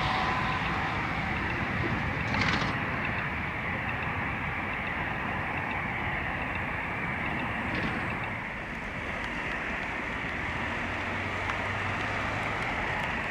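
Steady running noise of vehicle engines, with two brief hissing bursts, about two and a half seconds in and again near eight seconds.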